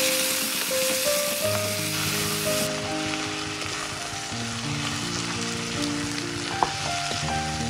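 Mutton pieces with onion and tomato sizzling in hot oil in an uncovered pot, loud for the first few seconds and then easing, while a wooden spatula stirs them. There is one sharp knock near the end, and soft background music underneath.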